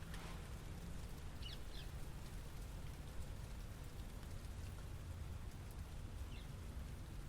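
City ambience: a steady low rumble of distant traffic under a faint hiss, with a few short high chirps about a second and a half in and again near the end.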